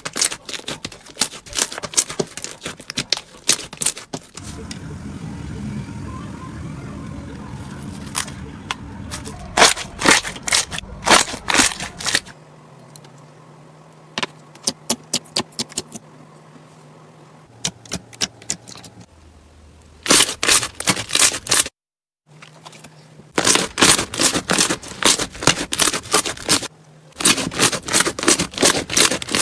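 Slime being squeezed and pressed by hand, giving bursts of rapid crackling pops and clicks, with quieter stretches of handling between them.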